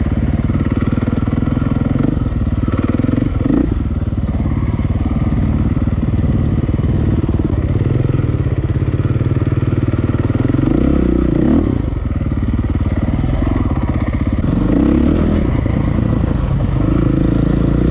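KTM EXC enduro bike's single-cylinder four-stroke engine running on a trail ride, the revs rising and falling a few times with the throttle.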